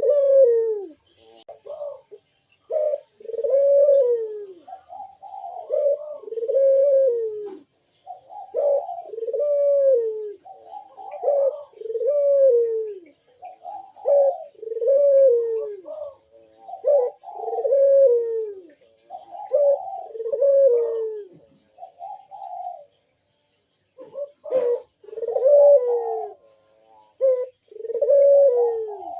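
Puter (Barbary dove) cooing over and over in the loud 'bekur' manggung song: a string of low, arching coos, each dropping in pitch at its end. There is a short pause a little after twenty seconds in.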